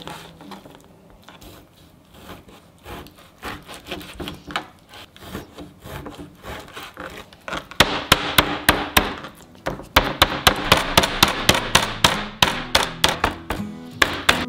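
A knife slicing raw pork on a plastic cutting board, then, from about eight seconds in, a meat pounder beating the pork slices flat on the board in quick, loud thuds, about four a second.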